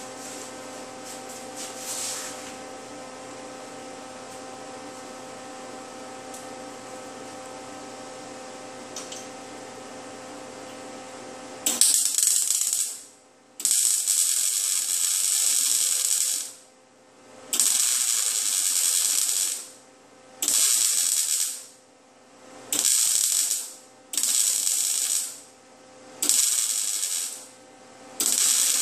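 A Lincoln Weld-Pak 175 HD wire-feed welder laying a plug weld on sheet steel: after about twelve seconds of steady hum, the arc crackles and hisses in eight short runs of one to two and a half seconds each, stopped and restarted in quick succession.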